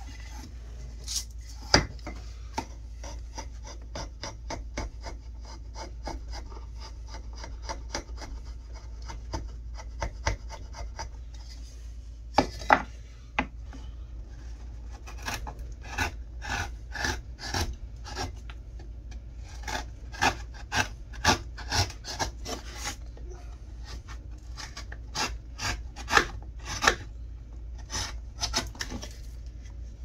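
Hand chisel and gouge paring a softwood 2x4 block, a run of short scraping cuts as chips come away. There are a few sharper knocks, about two seconds in and near the middle. Toward the end the cuts come as separate strokes, about two a second.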